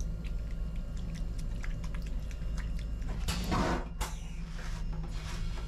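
Tap water splashing over hands into a stainless steel washbasin, with small clicks and drips and a louder gush a little after three seconds in, over a steady low hum.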